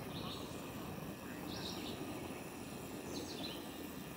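Small birds chirping in short calls, about three of them a second and a half apart, over a steady low outdoor background noise.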